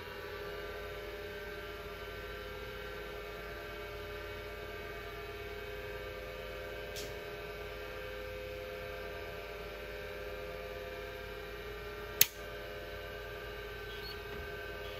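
Apple Widget 10 MB hard disk drive spinning with a steady hum of several tones, having just come up to speed. A faint tick about seven seconds in, and one sharp click about twelve seconds in as the head actuator's latch moves.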